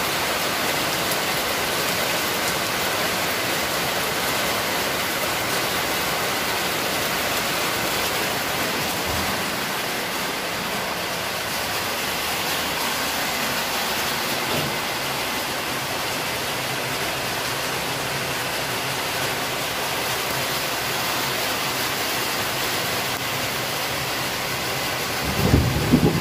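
Steady heavy rain falling. About a second before the end, a loud low rumble of thunder starts.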